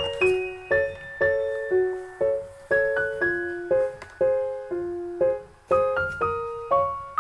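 Background piano music: a gentle melody of single struck notes, about two a second, each ringing and fading.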